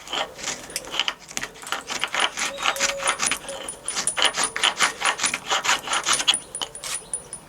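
A hand tool scraping round the top edge of the handlebar bush holes in a motorcycle's metal fork yoke, putting a slight taper on them, in quick repeated strokes about four a second with a faint high metallic ring. The strokes stop a little after six seconds.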